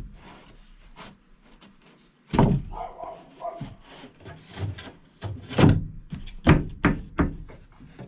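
Irregular dull thumps and knocks of a wooden floor panel being pressed and forced into place by hand. The loudest knock comes about two and a half seconds in, and several more follow in the second half.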